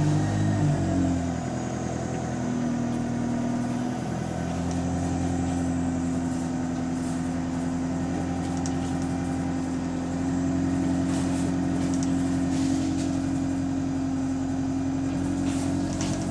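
Bus engine running steadily under way, heard from on board, louder for the first second or so, then holding an even hum that rises slightly in pitch and loudness about ten seconds in. The bus has an exhaust leak.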